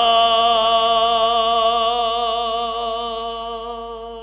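A man chanting solo in Romanian Orthodox style, holding one long note on the last syllable of a phrase, with a slight waver in the pitch. The note slowly fades and stops near the end.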